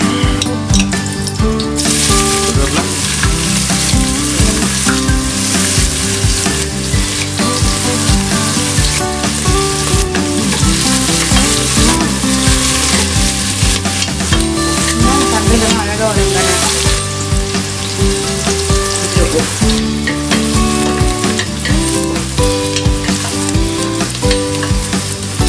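Chopped onions, green chillies and curry leaves sizzling in hot oil in a stainless-steel pressure cooker, stirred with a wooden spatula. The sizzle is strongest from about two seconds in until about seventeen seconds.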